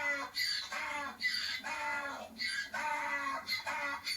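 Chickens clucking in a steady run of short calls, about two a second.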